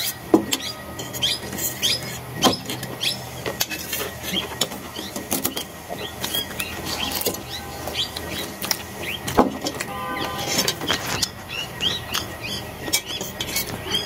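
Eating sounds: instant noodles slurped in squeaky sucks, with steel forks clicking and scraping on steel plates again and again.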